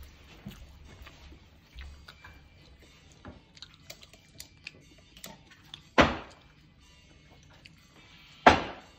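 Plastic water bottle being flipped and landing on a table: two loud thuds, about six and eight and a half seconds in, with small taps and clicks between.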